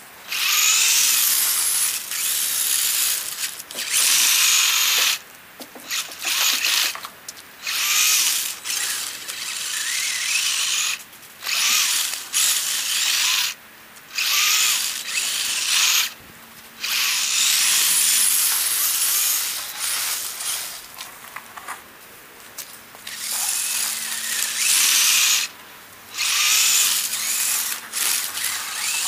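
Radio-controlled pickup truck with a snow plow blade, its electric motor whining in repeated stop-start bursts of one to three seconds as the throttle is worked on and off.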